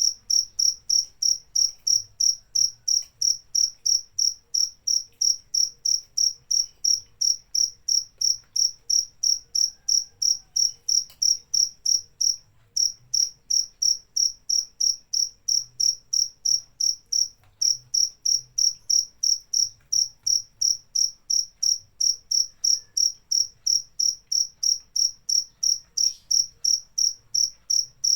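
Cricket chirping in a steady, even rhythm of about three short, high-pitched chirps a second, with two brief pauses partway through.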